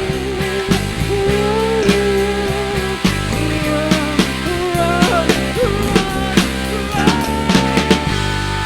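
Live rock band playing: drum kit, bass and electric guitar, with a sustained lead melody line that holds long notes and bends in pitch.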